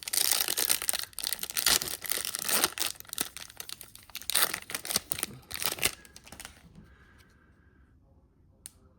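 Foil wrapper of a Topps Chrome trading-card pack being torn open and crinkled, a dense crackle for about the first six seconds that then dies away.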